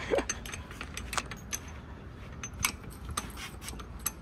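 Scattered sharp metallic clicks and clinks, several a second at uneven intervals, over a low steady rumble.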